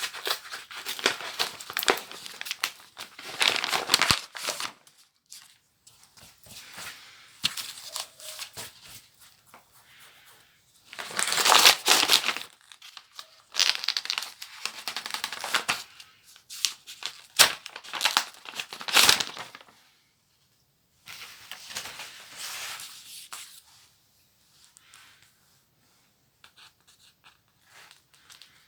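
Paper and plastic book packaging being torn open and crinkled by hand, in irregular bursts with a few sharp clicks and short pauses.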